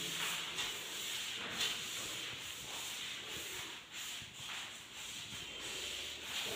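A hand rubbing over a sheet of white sunmica laminate, pressing it down onto the plywood panel it has just been glued to so that it bonds. A run of soft, irregular rubbing strokes.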